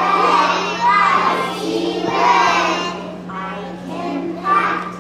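A choir of young children singing a song together, their voices loud, with short dips between phrases.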